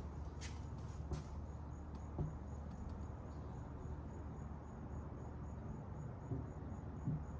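Faint insect chirping, a high note repeating about three times a second, over a steady low hum, with a few soft knocks.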